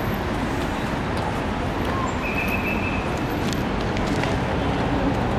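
Steady city road traffic noise from passing cars, with a short high-pitched tone about two seconds in.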